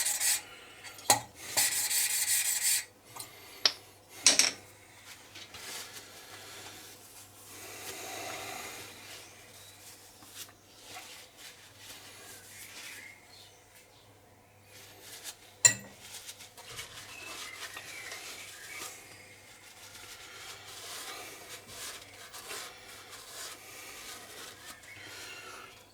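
Poppet valve being hand-lapped into its seat in a Kubota diesel cylinder head with grinding paste: a gritty rubbing and scraping as the valve is twisted back and forth on the seat, loudest in the first few seconds. Sharp metallic clicks come in between, as the valve is lifted and set back down on the seat, the loudest about two-thirds of the way through.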